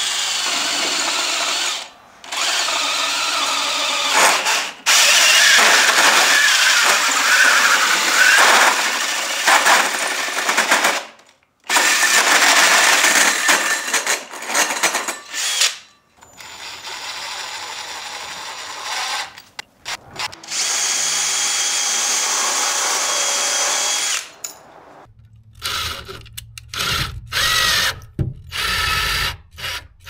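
Cordless drill driving a hole saw through a thin sheet-metal plate, a harsh, high scraping whine that comes in several long runs broken by short pauses. Near the end, a hole saw bores into an OSB and wood-framed wall in shorter, choppier bursts.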